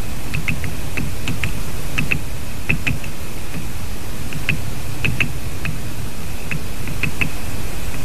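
Great spotted woodpecker pecking at wood: irregular sharp taps, often in quick pairs, with a pause of about a second partway through. Under them run a steady low noise and a faint constant high tone.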